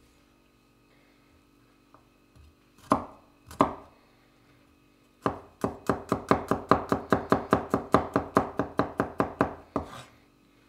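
Large kitchen knife chopping on a wooden cutting board, mincing garlic: two separate strikes, then a quick, steady run of chops at about five a second for some four seconds.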